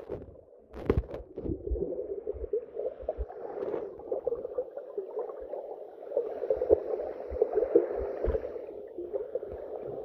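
Muffled underwater sound of sea water churning around a phone that has dropped into the sea, picked up through its submerged microphone, with scattered low knocks.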